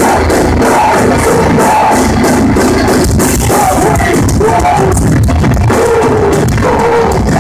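Live metalcore band playing loud, with pounding drums, heavy guitars and sung and shouted vocals.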